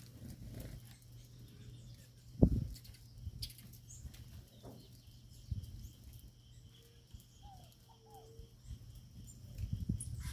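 Birds at a feeding tray: scattered light taps and knocks, with one louder thump about two and a half seconds in, and a few faint short chirps near the end.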